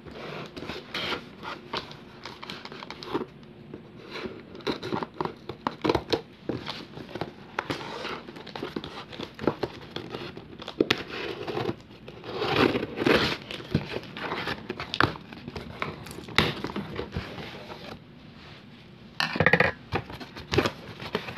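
Packing tape being torn and peeled off a cardboard shipping box, with irregular scratching, clicks and crinkling of cardboard as the box is handled and its flaps are pulled open; the loudest burst of tearing comes near the end.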